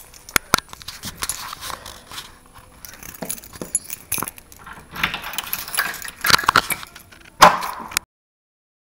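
Keys jangling and clicking against a door lock as a key is worked into it, mixed with knocks and rubbing from the camera being handled. Several sharp clicks, the loudest near the end, then the sound cuts off suddenly.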